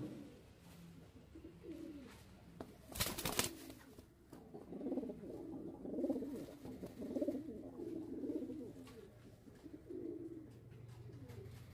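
Feather-footed fancy pigeons cooing: a low, rolling warble repeated over and over from about four seconds in, with fainter coos before it. A brief loud rustling burst comes about three seconds in.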